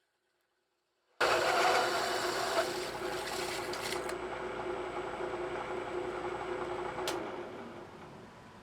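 A powered metal-cutting machine, boring a hole through a steel rim, starts abruptly about a second in and runs steadily with a mechanical whine. Near the end there is one sharp click, then the sound dies away to a low hum.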